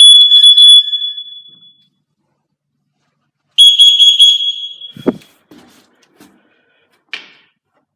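Interlinked FireAngel Wi-Safe 2 alarms sounding a high-pitched alarm tone, set off by a carbon monoxide test. The tone fades out about a second in, sounds again for about a second partway through, then stops; a single knock follows it.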